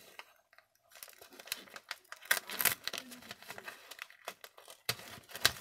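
Gift-wrap paper crinkling and rustling as a craft knife slits it open, with small irregular crackles and clicks starting about a second in and a louder rustle near the end.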